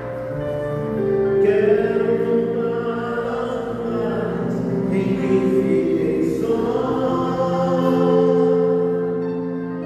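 A man singing a slow hymn into a microphone, joined by the voices of a congregation, in long held notes.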